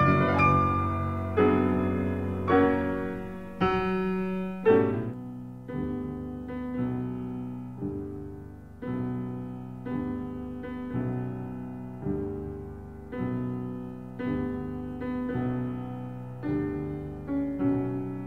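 Slow, gentle solo piano music, notes and chords struck about once a second and left to ring out. It turns softer and lower about four or five seconds in.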